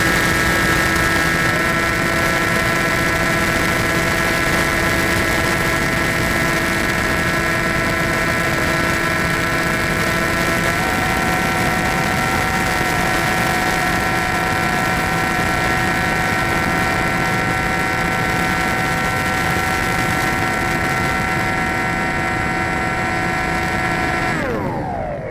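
Skywalker RC plane's motor and propeller running at steady speed, a steady whine over a rush of wind. Near the end the whine drops sharply in pitch as the motor slows.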